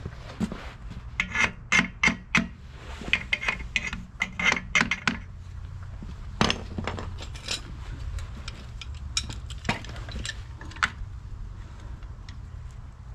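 Metal clinks and knocks of a screw clamp being handled and fitted onto a steel axle tube, a quick run of sharp clicks for the first few seconds, then scattered knocks as the clamp is tightened, over a steady low hum.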